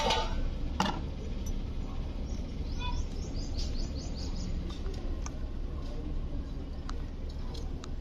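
Bird chirping: a quick run of short, high twittering notes about three seconds in, over a steady low rumble. There are a couple of sharp clicks near the start.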